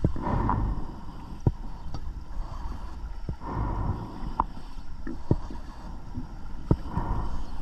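Underwater recording of a scuba diver's breathing: a bubbling rush of exhaled air swells three times, about every three seconds. Sharp clicks are scattered between the breaths.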